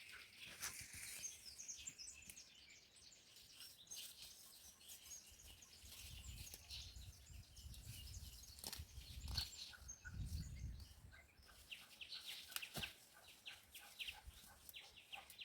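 Faint birds chirping over and over in quick short notes, with a low rumble swelling through the middle and a few sharp clicks.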